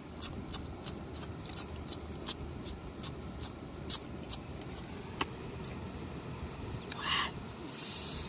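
Wood fire crackling: sharp irregular snaps about two a second over a low steady rumble, with a short hiss near the end.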